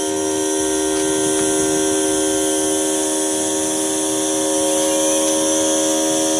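Electric vacuum pump of a kitchen vacuum-sealing machine running with a steady hum, drawing the air out of the marinade container.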